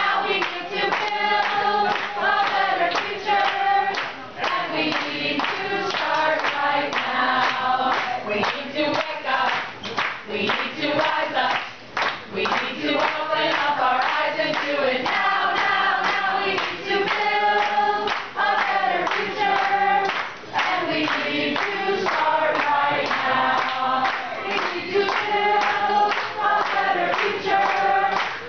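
A small group of voices singing a song together, with listeners clapping along in a steady rhythm.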